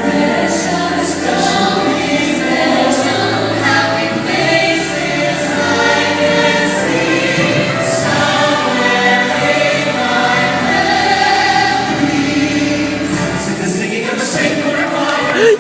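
Choir singing a melody with a steady low bass accompaniment; the music fades out near the end.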